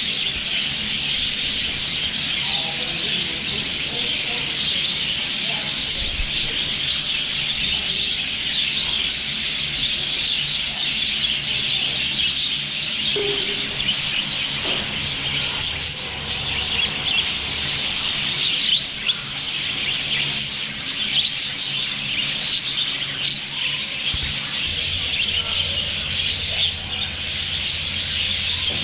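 A flock of budgerigars chattering and chirping nonstop: many overlapping short warbles and tweets.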